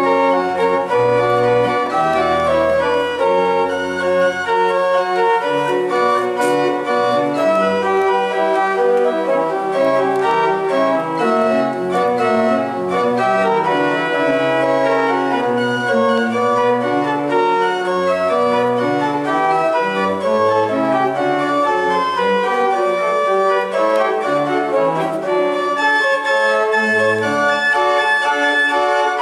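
Organ being played: full sustained chords with a bass line moving from note to note underneath.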